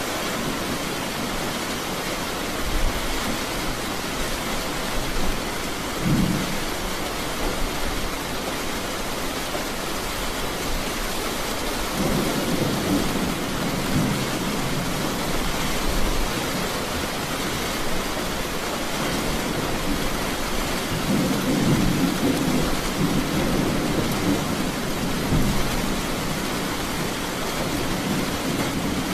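Heavy rain falling steadily with thunder rumbling in the background: a short rumble about six seconds in, and longer rolling rumbles from about twelve seconds and again from about twenty-one seconds.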